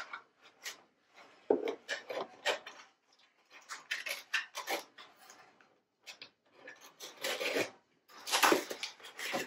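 Legs and base of a pink flamingo lawn statue rubbing, scraping and knocking as they are handled and fitted together: irregular short scrapes with a few sharp clicks.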